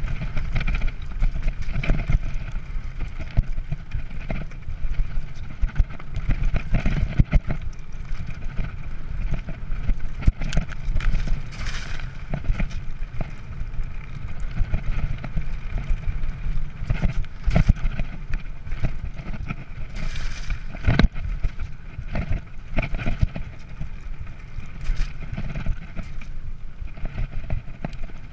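Mountain bike descending a rough dirt singletrack at speed, heard from a camera riding on the bike or rider: a steady low rumble from the tyres on the ground, with frequent sharp knocks and rattles as the bike hits roots and stones.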